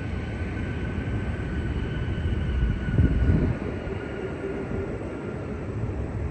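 Steady low rumble of jet aircraft engines across an airfield, with a faint whine that slowly falls in pitch. A gust of wind hits the microphone about three seconds in.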